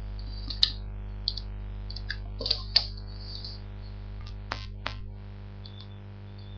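Steady electrical mains hum with a series of sharp clicks and small handling knocks, about seven in the first five seconds, two of them close together near the middle.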